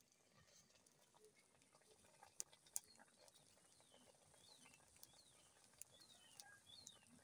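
Near silence with faint crackling from a wood fire and frying pork in an iron wok, and two sharper pops about two and a half seconds in. From about halfway on, faint short falling chirps come several times a second.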